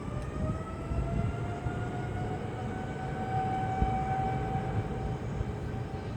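Jet airliner engines running: a low rumble with a whine that rises slowly in pitch over the first few seconds, then holds steady.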